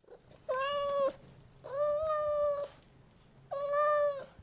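A cat meowing three times, each call long and held at a fairly steady pitch.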